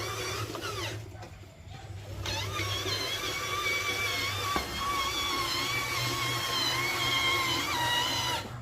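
Small electric motor and gearbox of a radio-controlled toy tractor whining. It winds down and stops about a second in, then spins back up a second later and runs on, its pitch shifting with speed.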